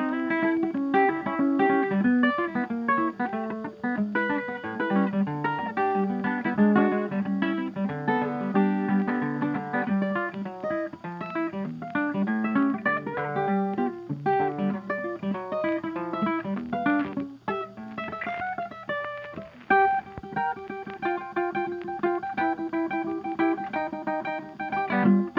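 Background music of a plucked guitar playing quick runs of notes.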